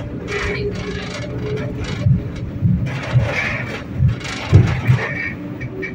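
Running noise of a 71-911E "City Star" tram heard on board: a steady low rumble with a constant tone, and several short low thumps from about two seconds in.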